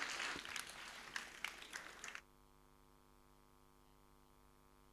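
Audience applause thinning out, then cut off abruptly about two seconds in, leaving a faint steady electrical hum.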